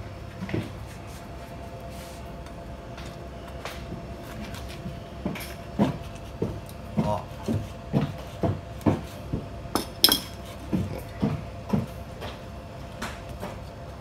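Kitchen knife chopping through a snake turtle's body on a cutting board, cutting away the shell: a run of dull knocks about two a second that starts about five seconds in, with one sharper crack near the middle of the run.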